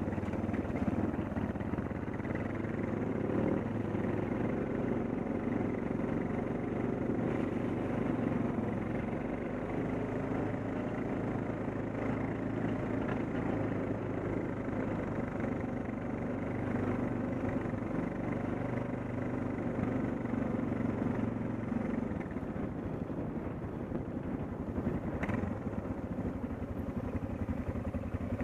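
Suzuki DR650's single-cylinder four-stroke engine running steadily under way on a dirt road, easing off near the end.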